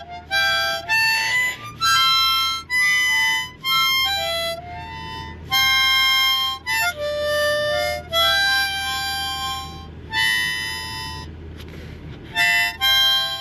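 A child playing a harmonica: a string of short notes and chords, some held for about a second, stopping briefly near the end before a few more quick notes.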